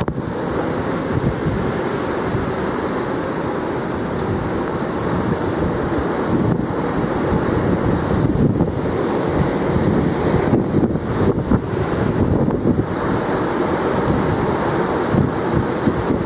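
Typhoon-force wind blowing hard and without let-up, rising and easing a little every few seconds, with wind buffeting the microphone.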